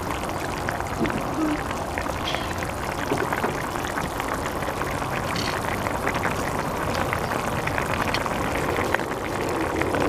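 Fish and tomato broth simmering in a pan, bubbling steadily with many small pops.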